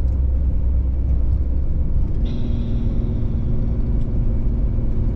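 Camper van driving, its engine and road rumble heard from inside the cab; a steady higher hum joins about two seconds in.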